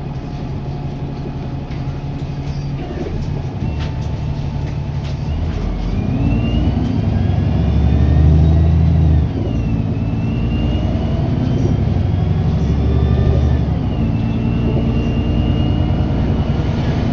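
Wright Gemini 2 / VDL DB300 double-decker bus accelerating. The engine grows louder from about six seconds in, under a high whine that rises, drops back with a sudden dip in level at a gear change, then rises and falls again. This is the weird acceleration noise the bus is known for.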